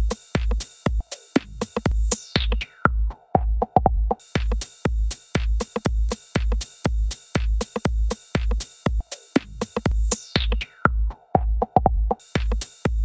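Background electronic dance music with a steady drum-machine beat and a falling synth sweep heard twice.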